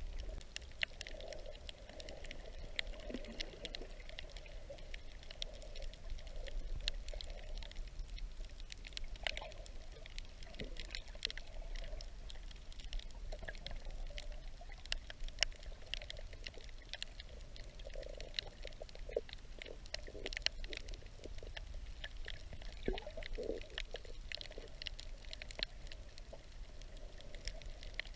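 Underwater reef ambience heard by a submerged camera: a steady crackle of many small sharp clicks over a low rumble of moving water.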